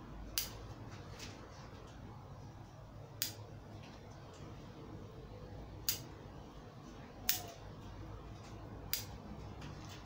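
Bonsai pruning scissors snipping the shoots of an elm forest bonsai: five sharp snips at uneven intervals, a few seconds apart, with a few fainter clicks between.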